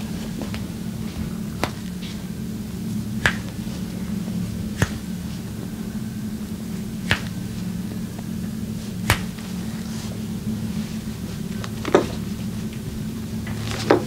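About seven short, sharp snaps from a masseur's hands, one every one and a half to two seconds, over a steady low hum.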